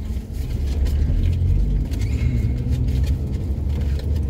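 Steady low rumble of a car on the move, engine and road noise heard from inside the cabin.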